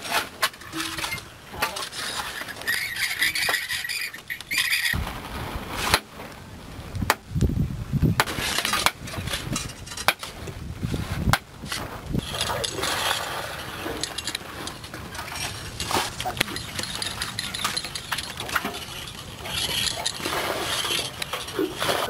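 Hand digging at the bottom of a well: irregular knocks and scrapes of a pick and an iron digging bar striking rock and wet earth.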